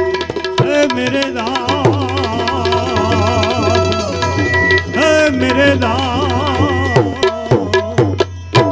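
Indian devotional bhajan music with no words sung: tabla playing over a steady low drone and a melody of held notes with wavering vibrato. A quick run of sharp drum strokes near the end closes the phrase.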